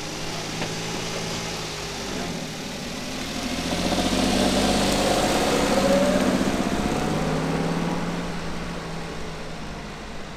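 Kei truck driving past, its small engine growing louder to a peak about five seconds in, then fading as it pulls away.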